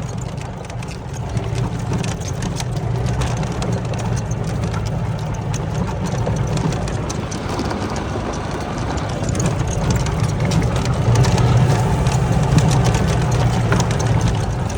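Golf cart being driven over rough ground: a steady low drone from its drive, with many small rattles and knocks from the body and frame, getting louder about ten seconds in.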